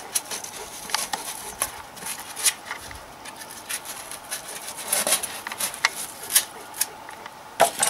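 A knife cutting and scraping through a sheet of dense extruded polystyrene foam: a run of short, irregular scratchy squeaks and crackles, busiest about five seconds in and again near the end.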